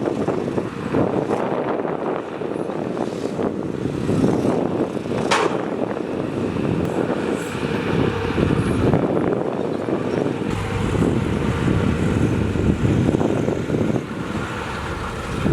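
Heavy diesel construction machinery running steadily, with one sharp click about five seconds in.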